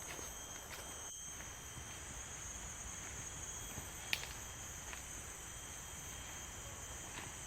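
Steady high-pitched chorus of forest insects, with a thinner constant tone beneath it. A few sharp clicks break through, the loudest about four seconds in.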